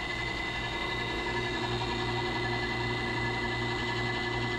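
Soft-serve ice cream machine running: a steady mechanical hum with a thin, high, constant whine.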